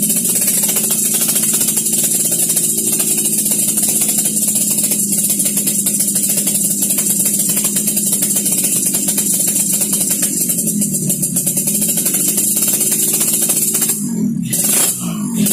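Yamaha RX-King's 135 cc single-cylinder two-stroke engine idling steadily through a crisp-sounding ('garing') aftermarket exhaust. Near the end the engine is revved up and down a few times.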